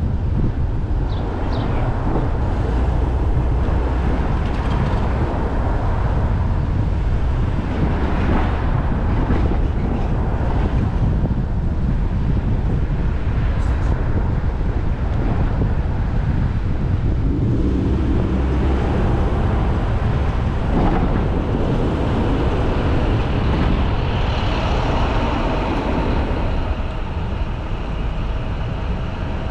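Steady low rumble of a moving vehicle in city traffic. Near the end a few thin, steady higher tones rise above it.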